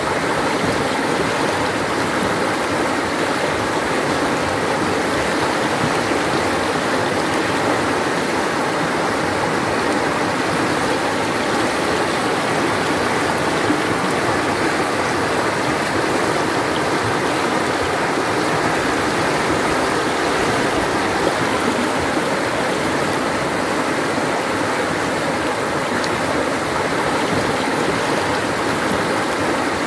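Rushing water of whitewater river rapids: a steady, even rush with no change in loudness.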